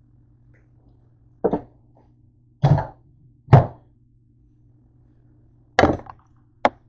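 Five separate knocks and thuds, spaced unevenly, as things are handled and set down on a kitchen counter.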